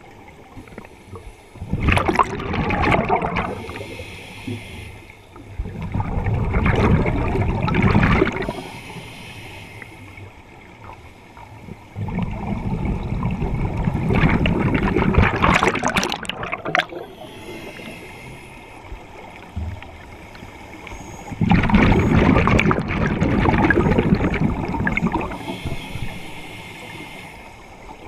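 Scuba diver's exhaled bubbles gurgling out of the regulator, recorded underwater, in four bursts of two to four seconds each with quieter stretches between, a fifth burst starting at the very end.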